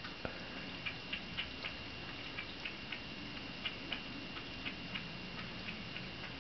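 A cat lapping liquid from a wine glass: quick soft tongue clicks, about three or four a second in short runs with brief pauses. A faint steady high-pitched tone sits underneath.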